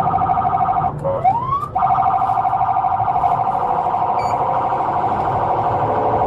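Police car siren in a fast pulsing warble, heard from inside the patrol car over the low rumble of the moving car. About a second in, it breaks off briefly into a rising sweep, then returns to the fast warble.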